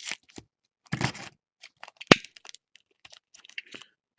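Baseball card packs being opened and handled: short crackles and crinkles of the foil wrappers and cards, with one sharp, loud snap about two seconds in.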